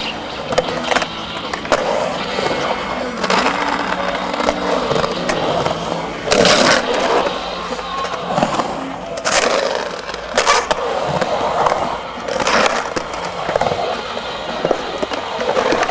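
Skateboard wheels rolling and carving on a concrete bowl, a continuous rough rumble. Several times it swells into a brief, louder, sharper scrape.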